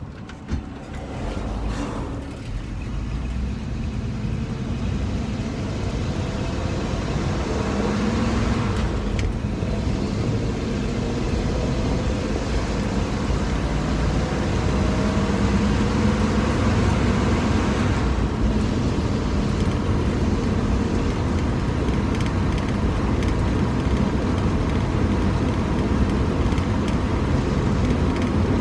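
1949 Ford flathead V8 engine and road noise heard inside the cabin as the car pulls away and gathers speed, growing louder throughout, with the engine note breaking off and picking up again a few times at gear changes on the three-speed column shift.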